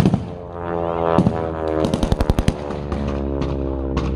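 Gunfire: scattered single shots and a rapid machine-gun burst about two seconds in, over a steady droning engine whose pitch sinks slightly.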